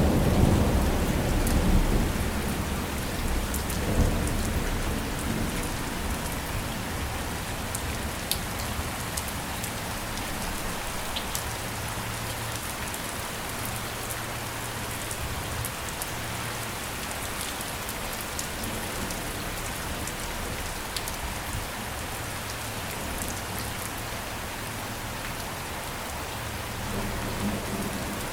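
Steady rain pattering on a surface, with sharp individual drop ticks. A low rumble of thunder dies away over the first few seconds, and another low rumble begins to build near the end.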